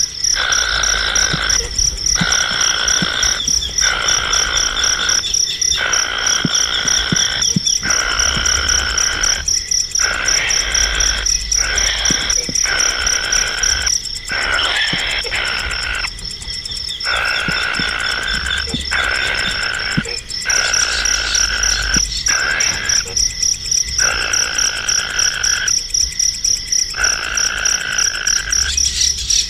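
Animal calls: repeated bouts about a second long with short gaps between them, over a continuous high, rapid pulsing trill.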